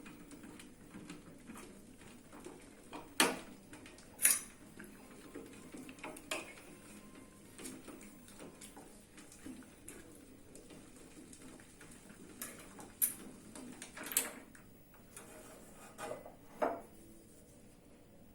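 Kitchenware being handled: a scattered series of sharp clinks and knocks, some ringing briefly, the loudest about three and four seconds in and another cluster between about thirteen and seventeen seconds.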